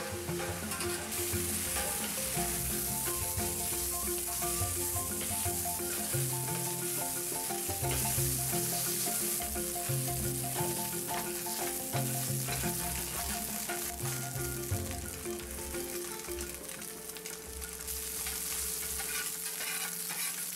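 Thin-sliced ribeye steak sizzling in a hot cast iron skillet with a steady hiss, stirred and turned with a wooden spatula. Quiet background music with a bass line plays under it.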